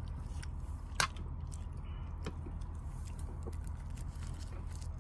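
A person chewing a mouthful of soft rice wrapped in laver, with light mouth sounds and a sharp click about a second in, then a few fainter clicks.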